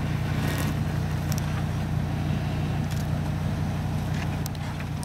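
Hummer 4x4's engine running steadily at low revs as the truck crawls over rocks, with a few scattered sharp clicks of stones under the tyres.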